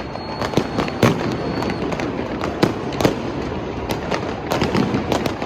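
New Year fireworks going off in quick, irregular succession, a sharp bang every half second to a second, the sharpest about a second in and about three seconds in, over the steady din of a large crowd.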